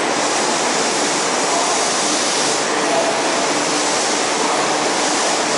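Subway train running out of the station platform: a loud, steady rushing noise.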